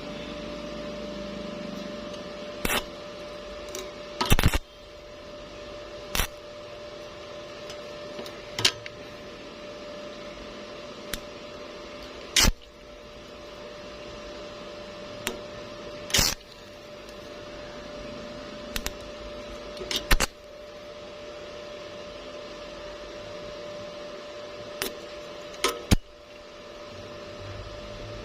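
Steady machine hum with a faint held tone, broken by about a dozen sharp clicks or knocks at irregular intervals.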